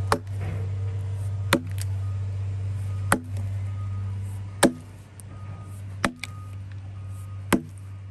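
Hickory-handled axe with a heavy 5-pound head chopping into a log: six sharp strikes, one about every second and a half, each biting out chunks of wood. A steady low hum runs underneath.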